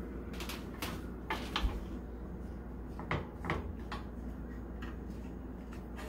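A few light, irregular knocks and taps of fingertips and a wooden cutting board as pie-crust dough is pressed thin on it, over a steady low hum.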